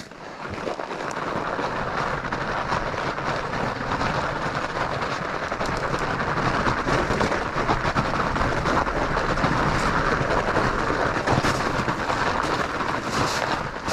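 Fat bike's studded tires rolling fast over packed snow and ice: a steady crunching, clattering rush that builds over the first second and then holds.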